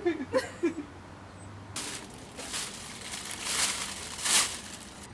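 Rustling and crinkling of plastic bags and packed belongings being handled, in a run of bursts over the last three seconds, the loudest near the end.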